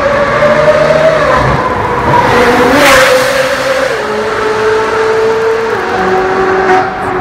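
Ferrari 458 Italia's flat-plane-crank 4.5-litre V8 with an Fi Exhaust, a high-pitched engine note passing at speed, loudest about three seconds in. Its pitch steps down several times as it shifts up through the gears and pulls away.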